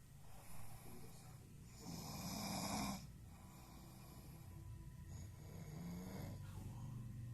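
A sleeping person snoring, with one long rasping snore about two seconds in and a fainter breath a few seconds later.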